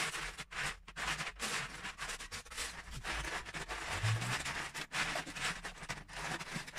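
Loose Lego bricks clattering and rattling in plastic tubs as two people's hands rummage and sift through them, a steady stream of small plastic clicks.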